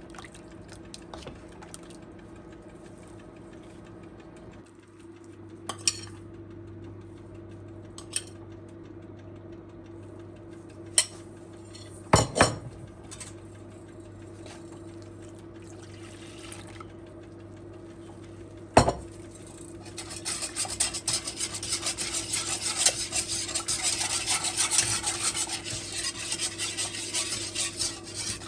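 Kitchen utensils knocking against cookware a few times, with two loud clacks about twelve and nineteen seconds in, then from about twenty seconds a utensil scraping steadily around a pot as the mixture is stirred. A steady low appliance hum runs underneath.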